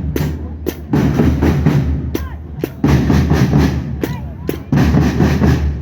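Fanfarra marching band drums playing: bass and snare drums beating in loud, dense phrases about a second long that recur roughly every two seconds, with quieter gaps between.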